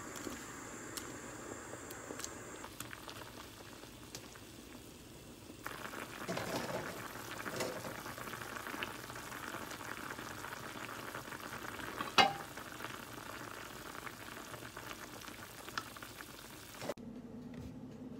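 Doenjang-gochujang stew bubbling at the boil in a clay pot, stirred now and then with a utensil. It grows louder about six seconds in, and there is one sharp knock about twelve seconds in.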